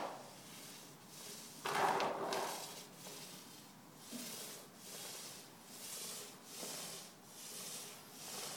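Lacquer roller on a pole being pushed back and forth over a wooden parquet floor, a soft, regular swishing about once every three-quarters of a second, with a louder rustling scuff about two seconds in.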